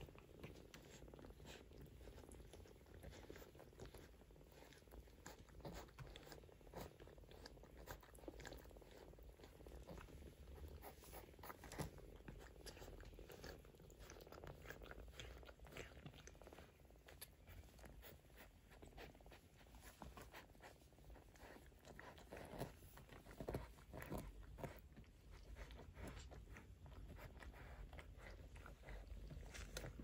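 Quiet, irregular small wet clicks and smacks of two-week-old Maine Coon kittens suckling at their mother, over a faint low steady rumble.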